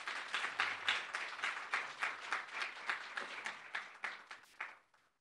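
Audience applauding, a quick run of distinct hand claps that fades out and stops near the end.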